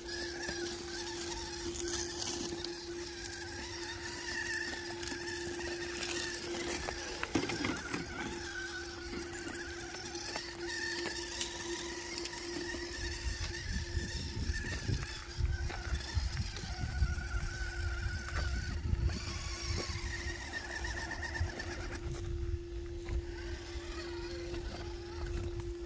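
Electric RC rock crawler with a Hobbywing Xerun AXE 2800KV brushless motor crawling up a rocky slope: a steady whine from the motor, with scattered clicks and crunches of tyres on loose rock and low rumbling in the second half.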